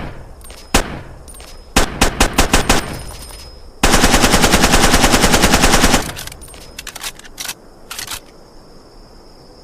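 Uzi submachine gun firing: a single shot, then a quick burst of about ten rounds, then a continuous full-auto burst of about two seconds, followed by a few scattered shots.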